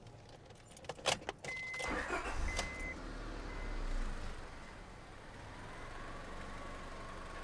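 2005 Honda Civic's 1.7-litre four-cylinder engine starting up and settling to a steady idle. A few clicks and two short beeps come just before and as it catches.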